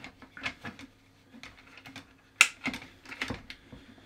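Clicks and knocks of a 3D-printed plastic rail kit being handled and slid onto an ICS L85 airsoft rifle, irregular, with one sharp knock about two and a half seconds in.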